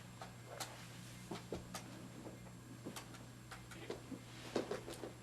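Faint, irregular light clicks and taps, roughly one or two a second, over a steady low hum.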